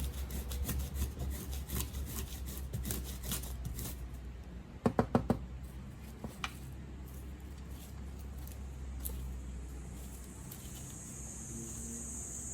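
Paperbark being scraped into shavings and tinder with a wood roughing tool: a quick run of rasping strokes, then four sharp knocks about five seconds in, followed by a few fainter scrapes.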